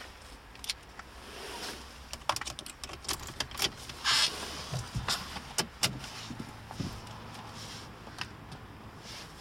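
Car key and key fob jangling and clicking as the key is handled and fitted into the ignition switch: a string of small clicks and rattles with a longer, louder scrape about four seconds in.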